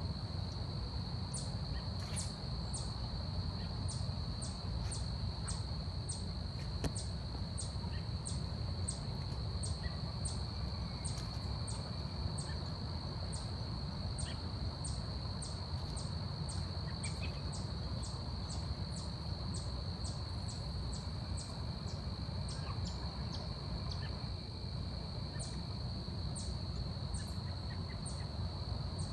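Forest ambience: insects make a steady high-pitched drone, with short, sharp high calls repeating about once or twice a second. A few faint whistled notes and a constant low rumble sit underneath.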